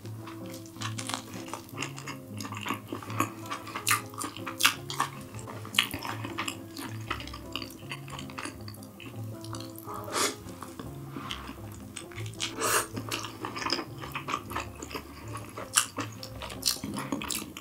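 Utensils clinking and scraping against food dishes while eating, many short sharp clicks, over background music.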